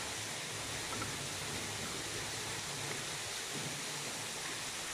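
Water falling down a stone wall at a watermill: a steady rushing splash.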